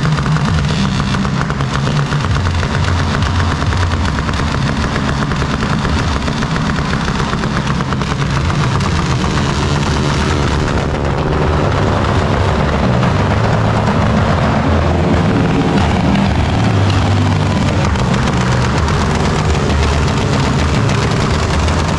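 Loud motorcycle engines running and revving, with a rapid staccato of firing pulses.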